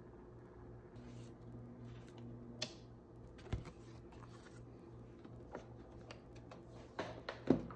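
Hands handling a freshly laminated plastic sheet on a glass desktop: scattered light clicks, taps and rustles, sharpest near the end. A steady low hum from the running laminator sits underneath.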